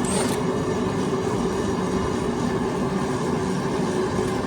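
Steady machine hum with a few fixed low tones, constant in level throughout.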